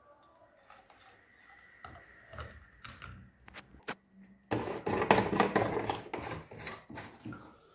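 Plastic spray bottle and jerry can handled on a countertop: a few light knocks and clicks, then louder rustling and handling noise with many clicks for a couple of seconds, starting about halfway in.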